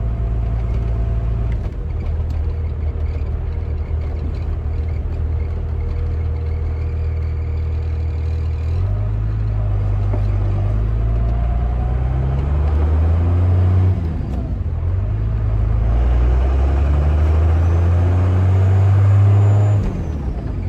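Vehicle engine and road noise heard from inside the cab while accelerating: the engine note climbs and falls back twice, as at gear shifts.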